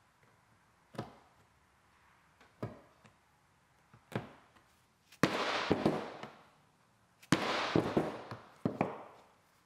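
Hand tools worked against leather on a wooden bench: three short, sharp knocks, then two louder rough scraping bursts, each starting with a hard hit and lasting about a second and a half.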